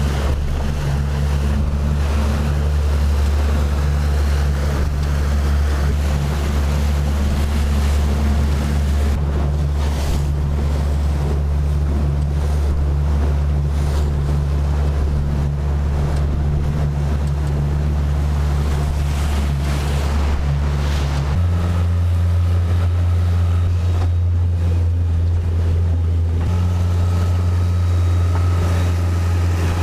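Suzuki 70 hp outboard running a small boat at speed: a steady low engine drone that steps up in pitch about two-thirds of the way through. Hull wash and wind buffeting on the microphone run with it.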